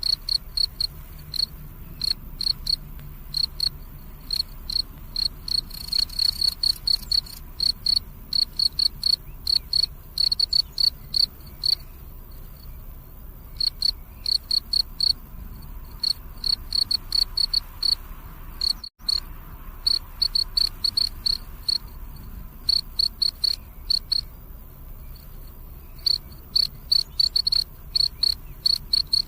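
Crickets chirping: a fast, even train of high-pitched chirps that thins out in a few short lulls, with a momentary silent dropout about two-thirds of the way through.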